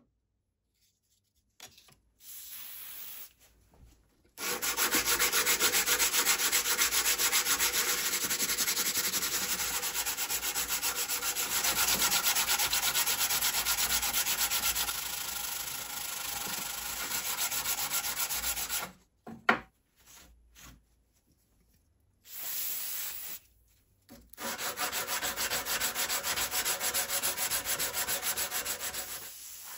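A knife handle being hand-sanded with sandpaper on a block, in quick, even back-and-forth rubbing strokes. The sanding starts about four seconds in, stops for a few seconds past the middle, then resumes.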